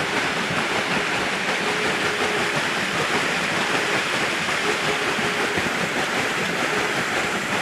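Water rushing steadily onto the small water wheel of a homemade hydro generator as it runs under increased flow, with a faint, on-and-off whine.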